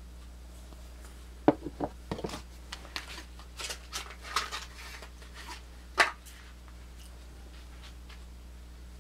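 Swiss Army knife and its packaging being handled: a sharp click about a second and a half in, then a run of small clicks and rustling, and another sharp click about six seconds in, over a steady low hum.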